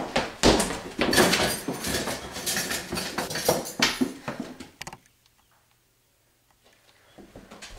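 A quick run of footsteps and knocks as someone hurries about. It cuts off abruptly about five seconds in, leaving near silence, and faint knocks return near the end.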